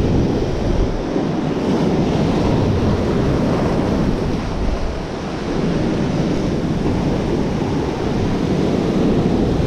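Sea surf breaking and washing over shoreline rocks, a loud steady rush that swells and eases, with wind noise on the microphone.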